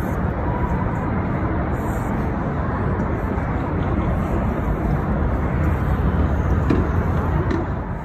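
Steady hum of road traffic from a busy multi-lane road below.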